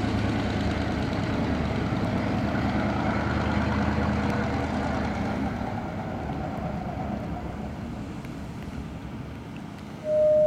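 Diesel engine of a lattice-boom mechanical truck crane running as the truck drives away, the rumble slowly fading. Near the end a short, loud, single-pitched tone sounds.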